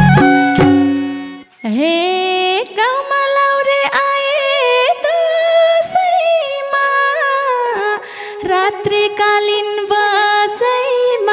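Dohori folk music: the full band with drums and harmonium stops about a second and a half in. Then a lone melody takes over, long held notes joined by smooth upward slides, with no drums under it.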